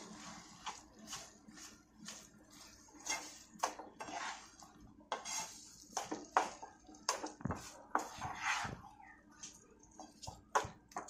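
A utensil scraping and knocking against a cooking pan in irregular strokes as moong dal halwa is stirred after sugar has been added.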